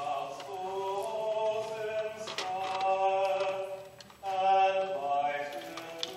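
Anglican clergy singing a slow, chant-like sung line, with notes held for about a second each. There is a brief pause about four seconds in, and then the singing resumes louder.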